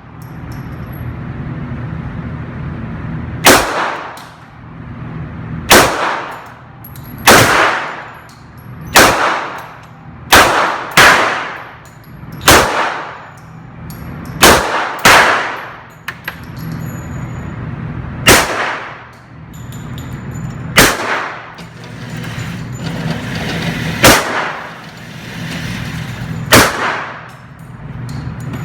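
About thirteen single gunshots fired slowly, one to three seconds apart with a pair fired in quick succession, each cracking sharply and ringing out briefly, over a steady low hum. The unhurried pace is that of slow fire for a group.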